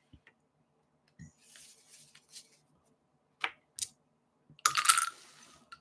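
Light handling sounds on a tabletop game: a few small clicks and taps, then a brief rustle near the end as the cards on the board are moved.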